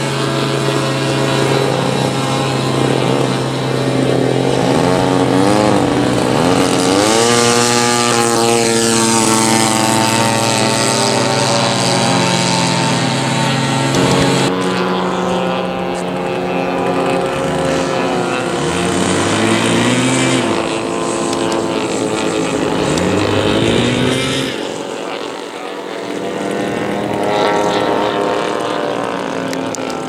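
Engines and propellers of large radio-controlled model airplanes. One holds a steady drone for about the first half, while others rise and fall in pitch as they speed up and pass.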